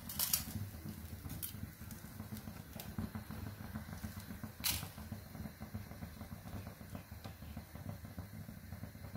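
Idiyappam press being squeezed by hand, pushing rice-flour dough out as strings: a low, uneven rumble with a few sharp clicks, the loudest just after it begins and another about halfway through.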